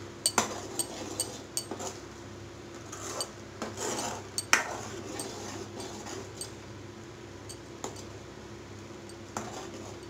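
Steel spoon stirring thick gravy in a metal kadai, clinking and scraping against the pan, with sharp clinks scattered throughout and a longer run of scraping about four seconds in.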